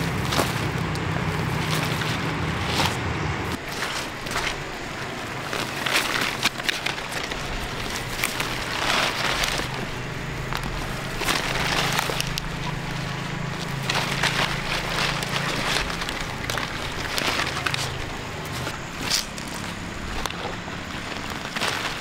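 Kohlrabi plants being pulled out of damp soil and handled: leaves rustling and roots tearing in a run of crackles and snaps. A low steady engine hum runs under it for the first few seconds and again midway.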